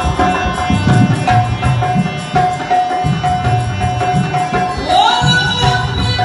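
Live Sindhi folk music: a dholak drum keeps a steady rhythm under a harmonium's repeated held note, and a singer's voice comes in about five seconds in.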